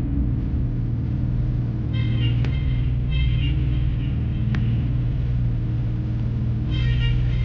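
Bobcat CT4045 compact tractor's diesel engine running steadily as the backhoe works, with two sharp knocks a couple of seconds apart and short bursts of high chirping tones twice.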